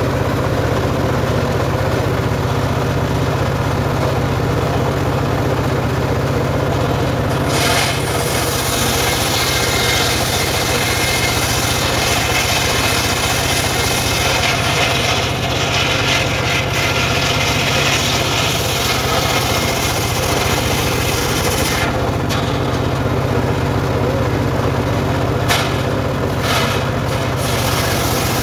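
Homemade engine-driven circular saw bench running steadily while its blade rips a log lengthwise. The cutting hiss comes in about eight seconds in, lasts until about twenty-two seconds, then returns in a few short bites near the end.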